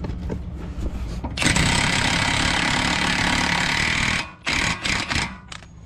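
Cordless Milwaukee M18 impact wrench hammering an axle nut onto a front hub in one long burst of about three seconds, then several short bursts as the nut snugs up. Before it, light clinks of metal parts in a cardboard box.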